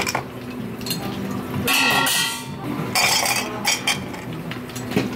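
Ice cubes clattering and clinking as they are tipped from a metal ice scoop into glass mugs, in a few short bursts.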